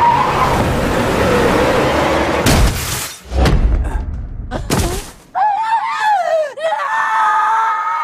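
A vehicle crash: a truck slamming into a car, with metal crunching and glass shattering in several loud bursts over about five seconds. Then a wavering, high-pitched cry, and a steady held tone that carries past the end.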